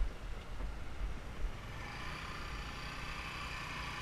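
Motorbike riding along a rough dirt road, its engine running. There is heavy low rumbling for the first second and a half, which then settles into a steadier hum.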